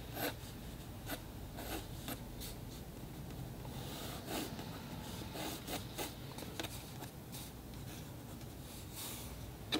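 Wooden pencil drawing on paper: a string of short strokes at an uneven pace as lines are sketched in.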